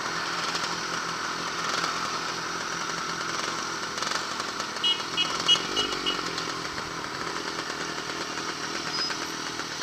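Yamaha RXS100's small two-stroke single-cylinder engine running steadily at low road speed. About five seconds in there is a quick run of five short high beeps.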